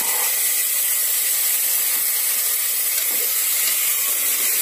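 Soaked white peas sizzling in hot oil with fried onion in a pressure cooker: a steady, even hiss as the wet peas fry.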